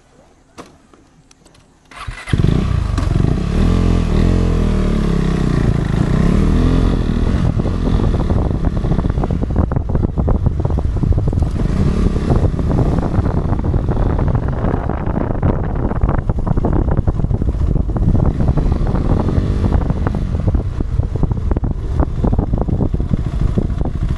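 Motorcycle engine running under way, with its pitch rising and falling as it revs, over a steady rush of riding noise. It comes in abruptly, loud, about two seconds in after a quiet start.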